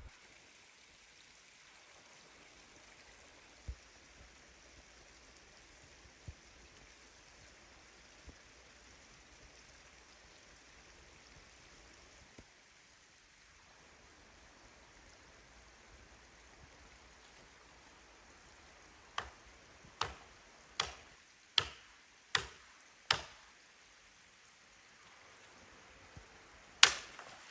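Faint steady hiss, then about two-thirds of the way through a run of six sharp knocks, roughly one every three-quarters of a second, and one louder knock near the end.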